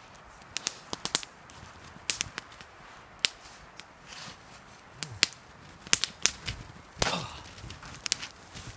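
Small campfire of twigs and sticks crackling, with sharp irregular pops, some loud, from wood that is not quite dry. A brief rustle about seven seconds in.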